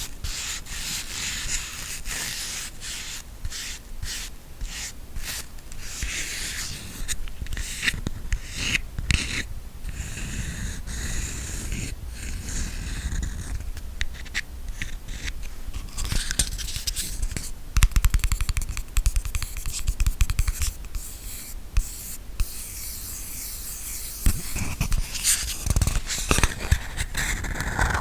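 Close-up ASMR scratching and tapping on an object: a long run of scratches and quick taps, with a few louder taps later on.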